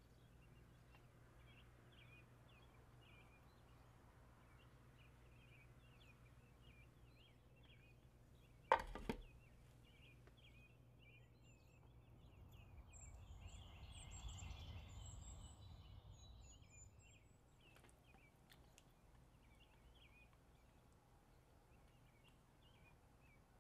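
A glass pot lid knocks down onto a stainless steel pan once, about nine seconds in, with a short ring. It is the loudest thing in an otherwise near-silent stretch of faint, repeated high chirping, with a soft low rumble swelling and fading in the middle.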